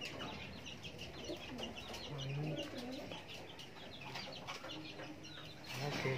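Domestic pigeons in a loft, a low coo about two seconds in and another near the end, over a steady run of short, high chirps from other birds, several a second.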